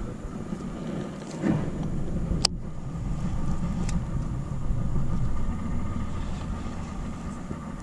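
Baitcasting reel being cast and reeled in: a sharp click about two and a half seconds in as the handle is turned and the spool re-engages, then a faint steady whir of the retrieve over a low, steady rumble.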